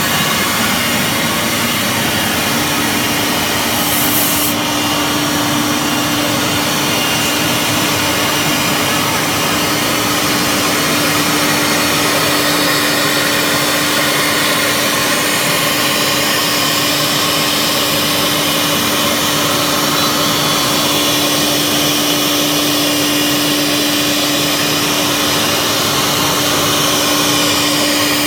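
CNC wood router running steadily, its spindle cutting wood with a constant tone underneath. A brief high hiss sounds about four seconds in.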